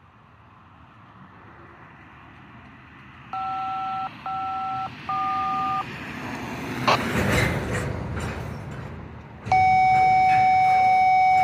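Railroad radio DTMF tones: three short two-tone touch-tone beeps, as used to dial up the dispatcher, then a louder long steady tone near the end. Underneath is a low rumble that slowly grows louder.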